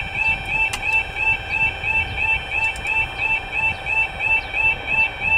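Level crossing warning alarm sounding: a loud electronic two-tone warble repeating evenly and rapidly without a break, the warning that a train is approaching the crossing.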